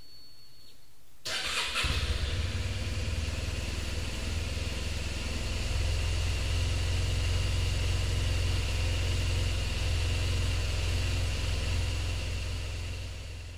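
An engine starts about a second in and runs steadily, with a low rumble, then fades out near the end.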